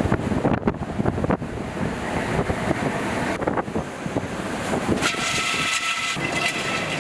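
Strong gusting wind buffeting the microphone with a heavy low rumble. About five seconds in, the rumble eases and a high steady whistling tone sounds for under two seconds.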